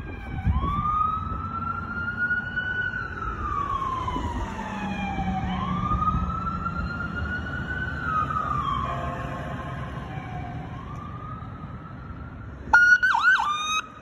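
Ambulance siren on wail, rising and falling slowly about every five seconds. Near the end comes a short, loud siren chirp.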